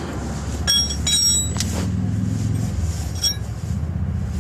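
A few light metallic clinks and taps of a wrench against the fuel pump's banjo fittings and lines, each ringing briefly, in the first second or so and again past three seconds. Under them runs a steady low hum.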